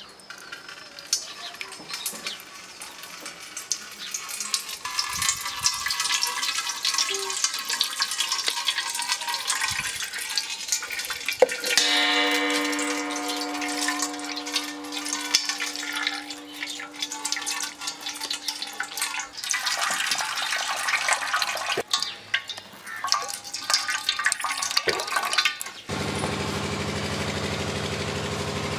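Coconut milk splashing and dripping through a plastic strainer into a steel bowl as grated coconut is squeezed by hand. A steady tone sounds for several seconds midway, and a steady low hum starts near the end.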